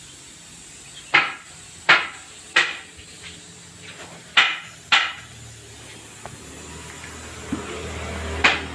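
Six sharp knocks, each ringing briefly: three in quick succession, then two, then one near the end. A low hum rises in the last few seconds.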